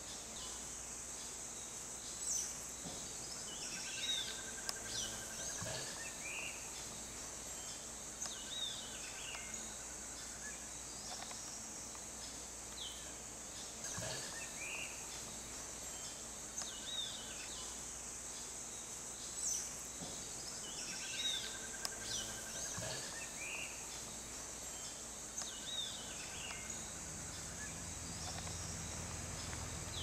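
Outdoor ambience: a steady high-pitched insect drone with birds calling every few seconds, short chirps and a repeated buzzy trill. A low rumble comes up near the end.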